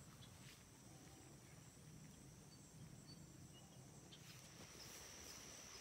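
Near silence with a faint insect trill, a thin high steady tone that comes in about four seconds in, and a few faint chirps before it.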